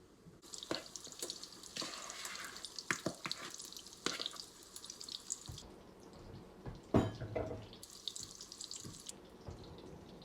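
Cornbread batter poured into a cast iron skillet of oil preheated in the oven, sizzling in two spells with small scraping clicks, and a single knock about seven seconds in.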